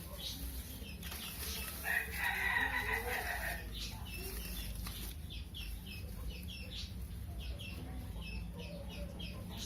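Birds calling: one long pitched call lasting about a second and a half, about two seconds in, then a run of short, high chirps, several a second.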